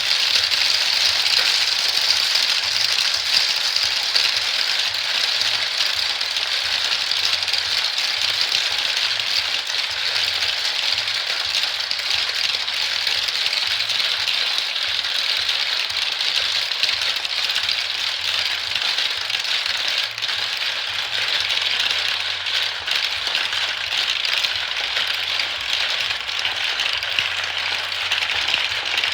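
Many marbles rolling and clattering down a marble run track, a steady dense rattle of small clicks.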